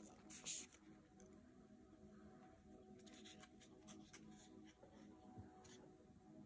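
Faint handling of small cardboard food boxes on a tabletop: a short rustling scrape of card about half a second in, then a few light taps and rubs as the boxes are set down, over a low steady hum.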